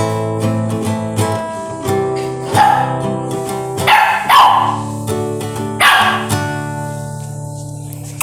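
Acoustic guitar chords strummed and left to ring, fading near the end, while a dog barks along about three times, reacting to the guitar.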